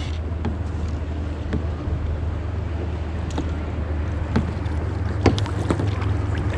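Steady low wind rumble on the microphone, with a few scattered light clicks and knocks.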